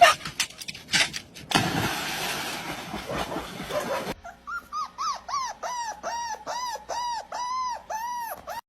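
An animal giving about a dozen short, high calls in a row, each rising and falling in pitch, two to three a second. Before them come a few knocks and a burst of hiss that stops suddenly.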